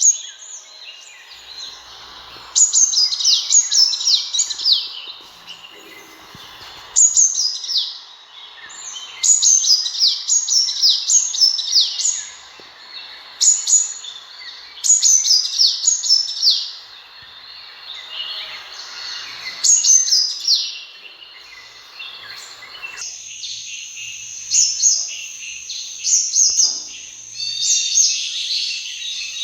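Sunbird calling in repeated phrases of quick, high, downward-sliding notes, one phrase every couple of seconds. Near the end the background hiss drops away and a thin, steady high whistle runs under the calls.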